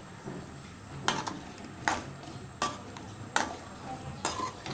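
A steel spoon clinking against a metal cooking pot about five times, roughly a second apart, as it stirs through pieces of taro, each knock ringing briefly.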